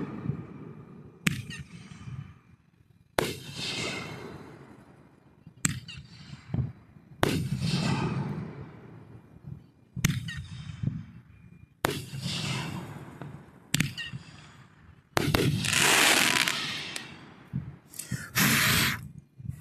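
Fireworks going off one after another: about nine sharp bangs a couple of seconds apart, each trailing off over a second or two. The longest and loudest burst comes about fifteen seconds in.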